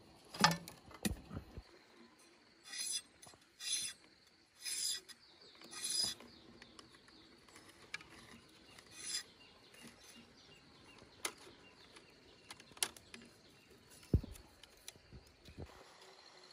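Thin bamboo strips being woven and split by hand: short dry rasping swishes as strips are drawn through the weave and along a knife, with a few sharp clicks and knocks of bamboo.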